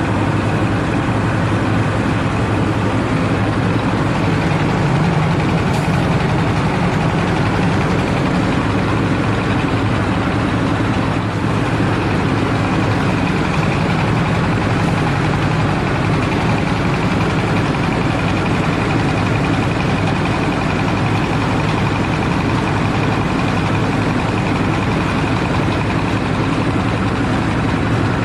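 Mobile rice huller machine and the diesel engine that drives it, running steadily and loudly without a break.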